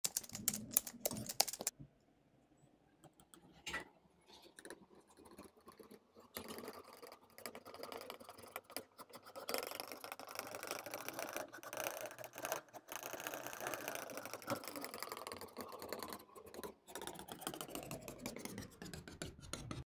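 Metal palette knife working thick black and white paint together on a surface: sharp wet clicks and smacks at first. After a short lull about two seconds in, a continuous sticky scraping and squelching of paint under the blade.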